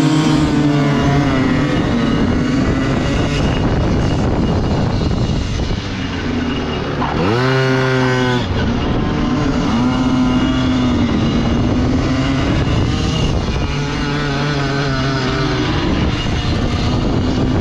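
Pit bike engine heard onboard while lapping a minimotard track: the revs rise and fall through the corners, with a sharp climb to high revs about seven seconds in that breaks off suddenly. A steady rushing noise runs underneath.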